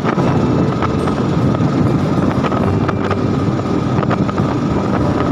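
Loud wind buffeting the microphone over a steady rushing noise with a faint constant hum, cutting off abruptly just after the end.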